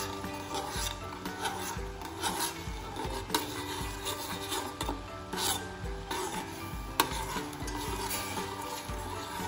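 Metal spoon stirring and scraping around the bottom of a stainless steel saucepan of sugar syrup coming to the boil, in repeated irregular strokes. The sugar is being kept moving so it dissolves without burning.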